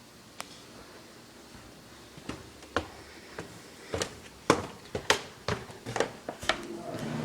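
Irregular sharp clicks and snaps, sparse at first and then coming faster, about a dozen in all. Right at the end a low steady hum sets in.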